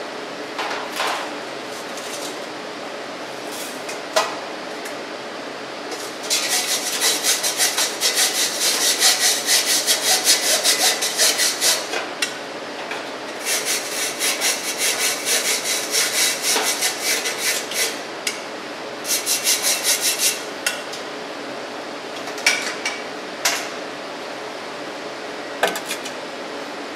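A brush scrubbing across the wire mesh of a test sieve in rapid, scratchy strokes, in three runs, cleaning retained aggregate out into a steel bowl. A few sharp metal knocks come before and after, as the sieve and bowl are handled and set down.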